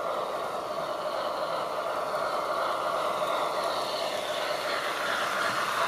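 HO-scale model steam locomotive and its train running along layout track, a steady rolling, whirring noise from the wheels on the rails and the motor.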